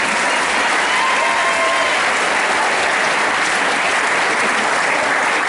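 Large audience clapping steadily and loudly at the end of a dance performance.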